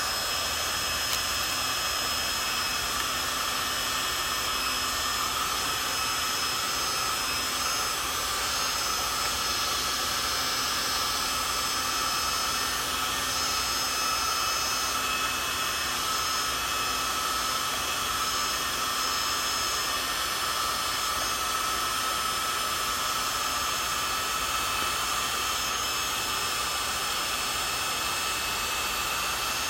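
A small high-speed motor running steadily, a constant whine over a rushing hiss like a blower or power tool.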